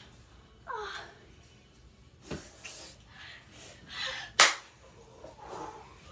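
A person's short cry falling in pitch, then breathy gasps and a single sharp smack about four and a half seconds in, the loudest sound, as in play-wrestling.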